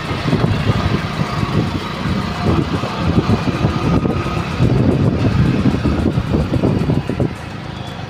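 Wind buffeting the microphone and road and traffic noise while riding on a two-wheeler along a city road, a dense low rumble that eases a little near the end.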